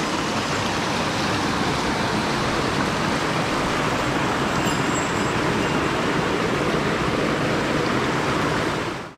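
Small mountain stream rushing over rocks and a little cascade close to the microphone: a steady, unbroken rush of water that cuts out abruptly at the very end.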